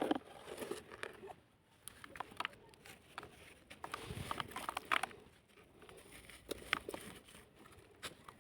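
Chunks of dried sand-cement dirt crumbling and crunching: irregular small crackles and taps, busiest about four to five seconds in.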